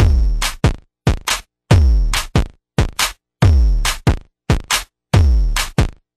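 Electronic outro music: a drum-machine beat of deep, falling bass kicks and short sharp hits, stuttering in chopped bursts with brief gaps.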